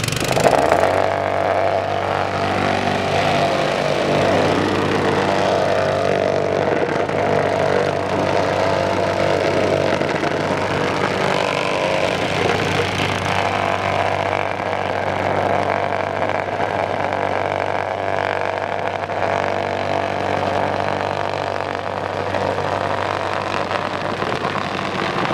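Honda GX160 engine of a Mikasa MVC-T90H plate compactor brought up from idle about half a second in, then running steadily at working speed as the vibrating plate, fitted with a rubber mat, compacts interlocking paving bricks.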